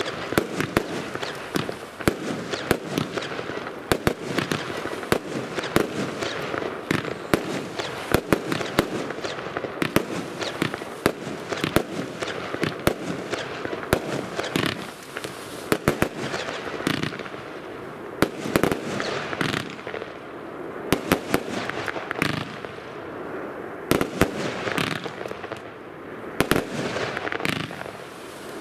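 Firework battery (the Blink Box cake) firing shot after shot: a rapid run of sharp bangs from launches and bursts, several a second, over a steady hiss and crackle from the burning stars.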